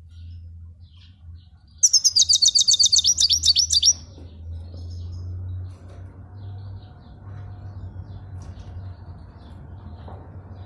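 Goldfinch singing a fast trill of about fourteen quick, high, downward-sweeping notes, lasting about two seconds, starting about two seconds in; a few faint chirps follow, over a steady low hum.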